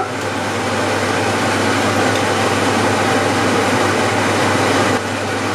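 Steady rushing, fan-like noise with a low hum underneath.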